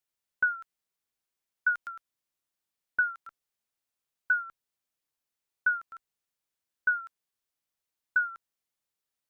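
Digital countdown timer beeps: a short electronic blip, falling slightly in pitch with a fainter echo right after it, repeated seven times about every second and a quarter.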